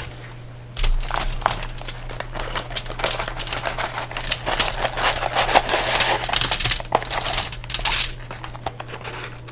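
McDonald's french fries being tipped out of a red cardboard fry carton onto a foil-lined tray: a dense, irregular patter of light ticks and crinkles from the fries landing and the carton and foil rustling. It starts about a second in, over a low steady hum.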